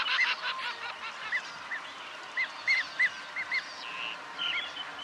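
A flock of Andaman teal calling: many short, high, arched calls repeated irregularly, some overlapping.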